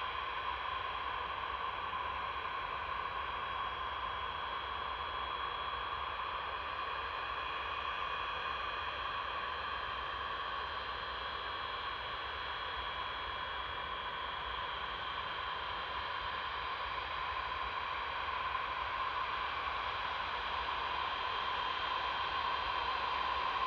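Antonov An-124-100's four Progress D-18T turbofans whining steadily at low thrust as the freighter taxis, with a few steady high tones over a broad rush; the sound grows slightly louder near the end as the aircraft comes closer.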